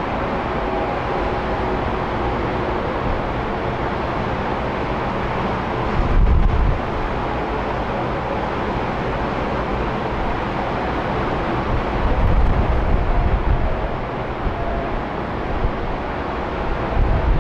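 Twin-engine jet airliner climbing out after takeoff, its engine noise a steady, even rush. Wind buffets the microphone with low rumbling gusts about six seconds in and again from about twelve seconds on.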